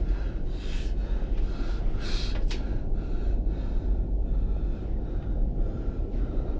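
A man's heavy, gasping breaths, short and irregular, over a steady low rumble.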